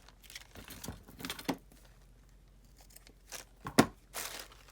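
Paper and ribbon being handled at a craft table: a series of short rustles and scrapes, with a sharp click near the end that is the loudest sound.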